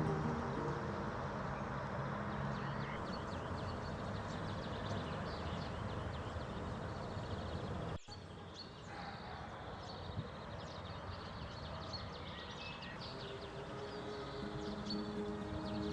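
Small birds chirping over a steady background hum, with an abrupt cut about halfway through. Soft music fades back in near the end.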